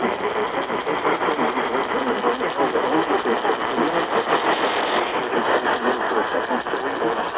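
Loud, steady radio static, the hiss of a noisy weather-radio signal, changing slightly in tone about five seconds in.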